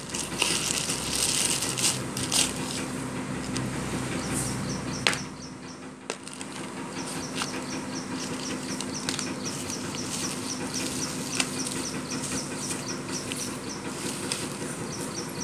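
Clear plastic packaging crinkling and rustling as hands unwrap a parcel, with a few sharp crackles. A faint high chirp repeats evenly in the background for much of it.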